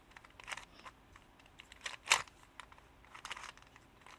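Plastic clicks and clacks of a Ghost Cube, a 3x3 shape-mod puzzle cube, as its layers are turned by hand; the sharpest click comes about two seconds in.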